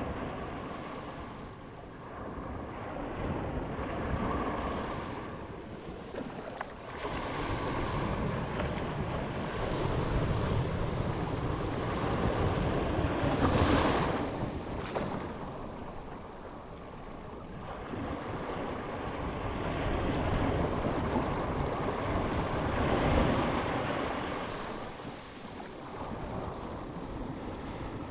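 Ocean surf: waves surging and breaking, swelling and falling away every several seconds, with the biggest crash a little before halfway.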